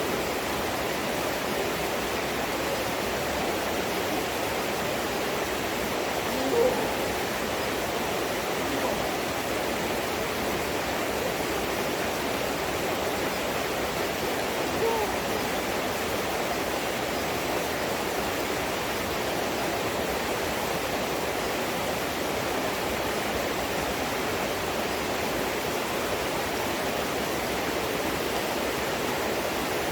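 Running water of a stream, a steady rushing flow, with two faint brief sounds about seven and fifteen seconds in.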